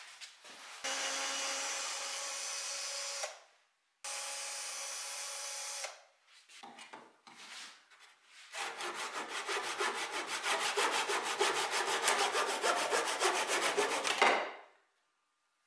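Flush-cut hand saw cutting through wood in quick, even strokes for about six seconds, then stopping abruptly. Earlier there are two steady sounds of about two seconds each.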